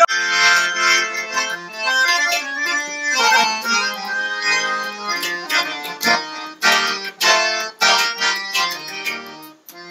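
Harmonium playing a melody over sustained reed chords, the notes held and changing in steps. A few sharp percussive hits fall in the second half.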